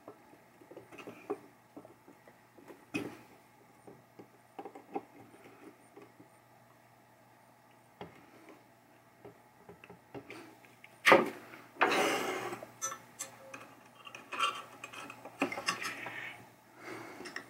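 Small metal parts of a pinball chime box (sheet-metal bracket and screws) clinking and rattling as they are handled and fitted together, in scattered light clicks. About eleven seconds in comes a sharp metal knock, followed by a second or so of scraping and rattling.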